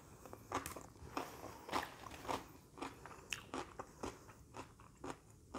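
Close-up chewing of a raw cucumber slice: crisp, wet crunches repeating about twice a second.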